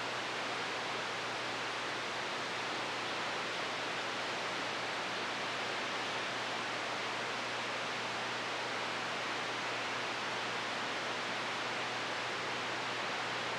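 Steady hiss of static from an RCI-2995DX radio receiver between transmissions, with no station on the channel, over a faint low hum.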